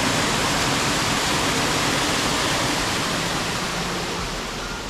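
Overflow water from a small dam rushing over rocks in little falls: a steady, loud rushing of falling water that eases off slightly near the end.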